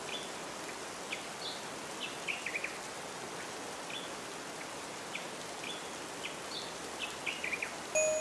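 Nature ambience: a steady rain-like hiss with scattered short, quick bird chirps. A chime-like tone comes in near the end.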